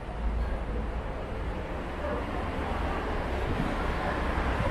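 Steady low wind rumble on the DJI Osmo Pocket's built-in microphone, over outdoor city background noise, as it is carried down a staircase. There are two faint footstep knocks near the end.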